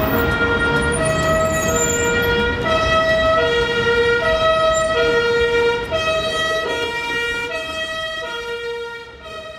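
Swiss emergency vehicle's two-tone siren, alternating steadily between a low and a higher note, each held for about two-thirds of a second, fading near the end, over street and tram noise.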